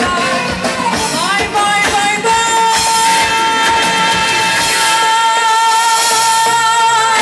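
Woman singing live into a microphone over a band with a steady beat. A little over two seconds in she holds one long note, and the beat drops out about five seconds in.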